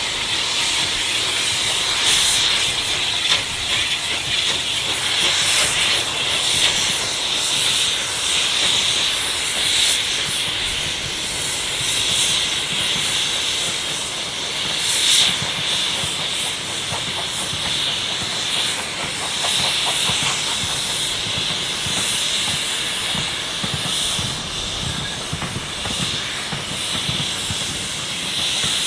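Steam locomotive hissing steam steadily, with brief louder gusts now and then.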